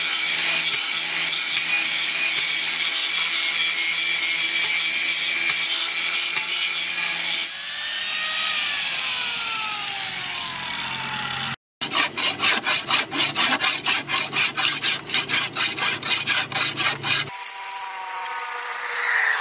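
Angle grinder with a sanding disc grinding the steel of a leaf-spring axe head. About seven seconds in, the grinder is switched off and winds down with a falling whine. After a break, a hand file rasps across the steel in quick back-and-forth strokes, about three a second.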